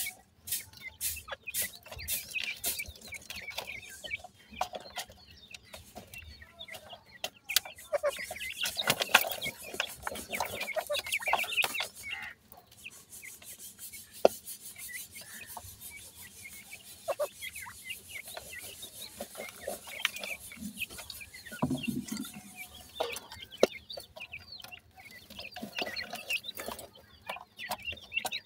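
Francolin (teetar) chicks scratching and pecking in a basin of loose dry soil, with many short scratches and clicks and soft clucking calls. The scratching is densest about eight to twelve seconds in.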